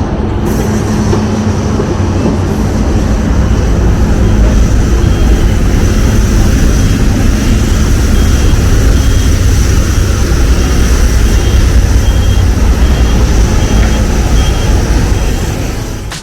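Boeing 787-9 airliner noise heard from inside the cabin: a loud, steady rumble and rush of engines and airflow. It swells slightly a few seconds in and falls away into an abrupt cut at the end.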